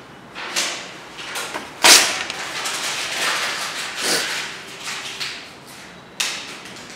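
Several noisy swishes and scrapes, the loudest a sudden one about two seconds in, with one falling sweep a little after four seconds and a sharp knock-like onset about six seconds in.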